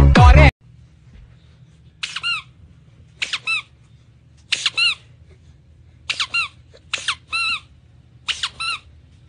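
Loud music cuts off about half a second in. Then come six short clusters of high-pitched squeaks, mostly two or three squeaks each, roughly one cluster every second and a half, over a faint low hum.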